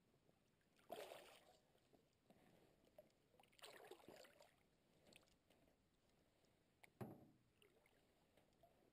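Faint paddle strokes from a canoe on calm water: a double-bladed paddle dipping and swishing through the water about a second in and again around the middle, then a sharp knock about seven seconds in.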